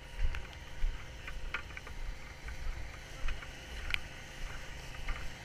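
Wind rumbling on the microphone outdoors, with rustling and a few sharp clicks from walking over wet grass while carrying a casualty.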